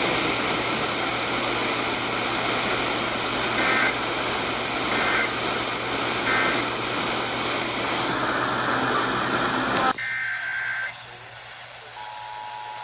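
FM radio reception heavy with static hiss, through which three short buzzy data bursts of an Emergency Alert System SAME header sound about a second and a half apart. About ten seconds in the hiss drops away and another short data burst plays, and near the end the steady two-tone EAS attention signal begins.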